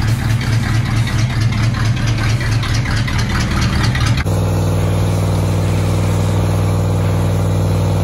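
Loud pickup truck engine running, with a pulsing, throbbing note for the first four seconds. It then cuts suddenly to an engine held at steady high revs.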